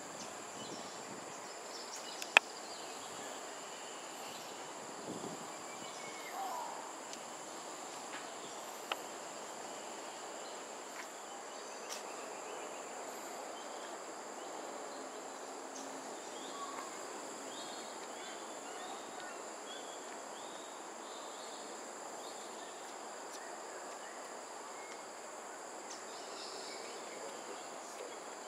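Steady, high-pitched drone of an insect chorus over quiet outdoor background noise, with a few sharp clicks, the loudest about two seconds in.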